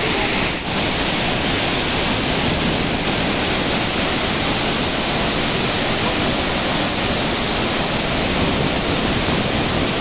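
Iguazu Falls close up: a loud, steady rush of falling water, with a brief dip about half a second in.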